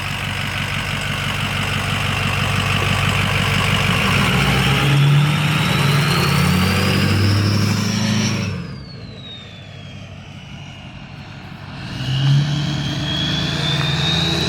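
A 6.0 Powerstroke V8 turbo diesel pulling hard, its KC Stage 3 turbo whistling loudly and climbing in pitch. About eight seconds in the throttle comes off: the whistle falls and the engine quietens. Near the end the engine pulls again and the whistle rises once more.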